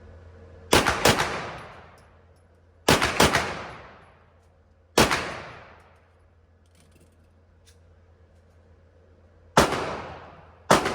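CZ Czechmate pistol firing: a quick pair of shots, then three rapid shots, then a single shot, and after a pause two more single shots near the end. Each report has a long echoing tail.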